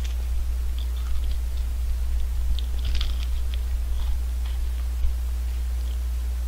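Crunching bites and chewing of an ice cream's wafer cone, a vanilla almond cone: scattered crisp crackles, thickest around the middle. A steady low electrical hum runs underneath.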